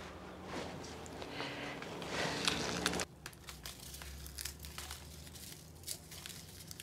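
Dried guajillo and ancho chiles being torn open by hand and deveined: the brittle skins crinkle and crackle, denser at first and then as scattered crackles.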